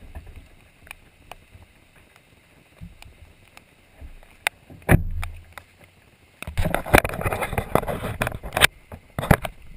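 Floodwater splashing and sloshing: scattered clicks and a thump at first, then loud, dense crackling splashing from about six and a half seconds in.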